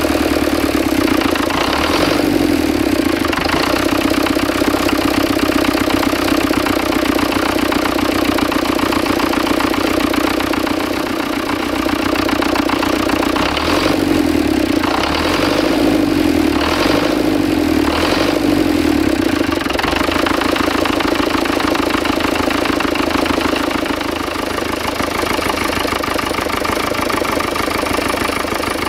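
Massey Ferguson 35 tractor's diesel engine idling steadily after a cold start, with a few short louder spells about halfway through.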